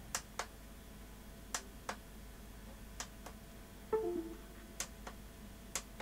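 Tactile push-buttons on an LG W2261V monitor's control panel being pressed, each press a sharp click-and-release pair, about every second and a half; the buttons are now working. A brief low murmur falls in pitch about four seconds in.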